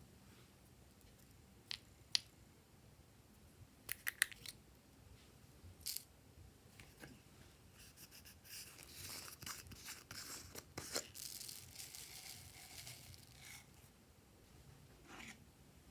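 Glossy slime being worked by hand: scattered sharp clicks and pops, a quick cluster of them about four seconds in, then a few seconds of rough, crackly hissing in the middle.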